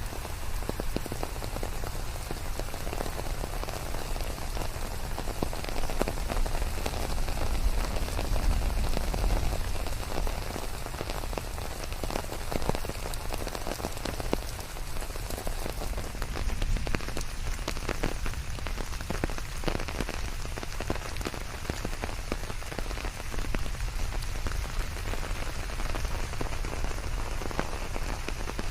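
Steady rain falling, with individual drops heard as many small ticks on top of the even hiss.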